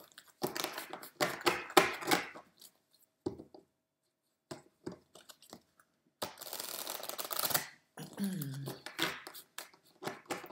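A deck of tarot cards being riffle-shuffled on a table mat: two riffles, one about half a second in and another about six seconds in, each lasting a second or two. Between them come light clicks as the deck is squared and tapped.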